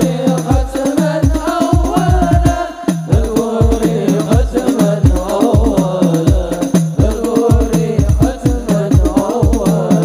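Hadroh ensemble performing: hand-beaten frame drums (rebana) keep a steady beat of about three strokes a second under several male voices singing an Islamic devotional song (sholawat) together, amplified through a PA.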